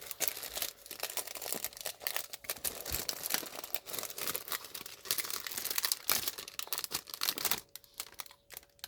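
Mystery-bag packaging crinkling and tearing as it is opened by hand: a dense run of irregular crackles that thins out near the end.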